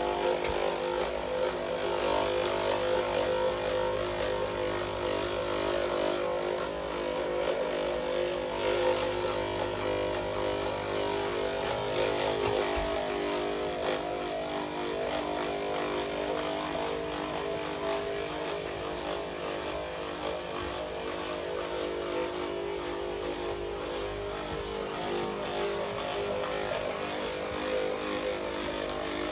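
Handheld electric percussion massager running steadily on a person's lower back, its motor hum holding one even pitch.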